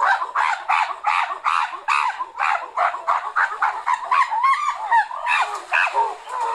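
An animal calling in a rapid run of short honking calls, about four a second, stopping near the end.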